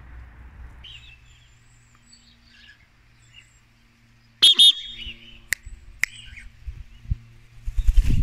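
Cockatiel calling: a few faint chirps, then a loud, harsh call about halfway through, followed by a couple of sharp clicks.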